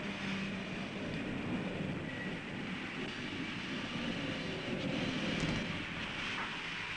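Truck engine running as the truck drives past, with a steady background hiss.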